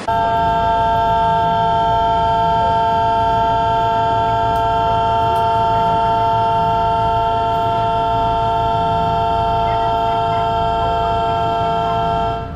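Railway station departure signal sounding as one steady, unbroken ringing tone made of several pitches, then cutting off abruptly after about twelve seconds, the sign that the train is about to leave.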